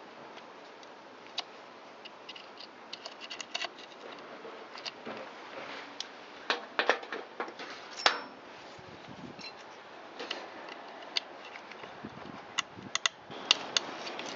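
Sharp metallic clicks and short scrapes of a tool on a seized Allen bolt being rocked back and forth in an aluminium engine case, working the bolt loose.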